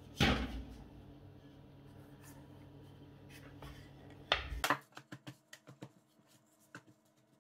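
Kitchen handling sounds on a wooden worktop: a knock as a perforated metal pizza pan is set down, a soft rubbing as pizza dough is unrolled off a wooden rolling pin onto the pan, then a few sharp knocks as the rolling pin is put down, followed by a run of light taps as fingers press the dough into the pan.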